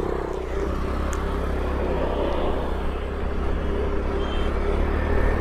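Riding noise on a moving scooter: steady wind rumble on the microphone over engine and road noise, slowly getting a little louder as it gathers speed.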